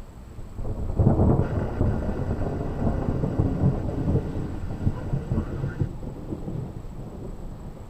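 Thunder: a loud clap about a second in that rolls on as a crackling rumble for several seconds, easing off near the end.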